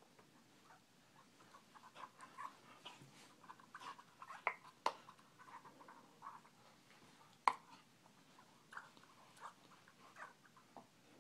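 A young border collie chewing and mouthing a ball, making scattered short clicks and snaps. The sharpest snap comes about seven and a half seconds in.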